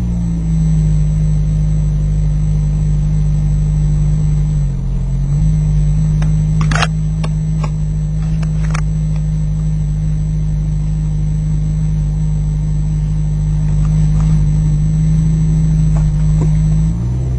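Ford Focus ST170's four-cylinder engine, heard from inside the cabin, running at steady revs while the car is driven. The engine note dips briefly about five seconds in and shifts again near the end, and a few sharp clicks sound around seven and nine seconds in.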